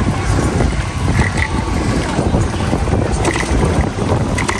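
Wind buffeting the microphone of a camera carried on a moving bicycle, a steady low rumble, with a few faint short high notes.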